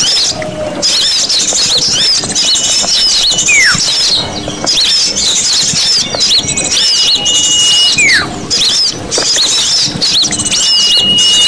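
Small-bird lure recording: a dense, noisy mix of many small birds chirping and scolding. A held high whistle followed by a falling whistle repeats about every four seconds, as in a looped track.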